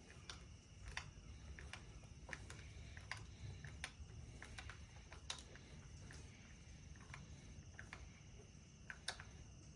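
Faint, irregular small clicks and ticks from hand work on the transducer mount, over a low background rumble.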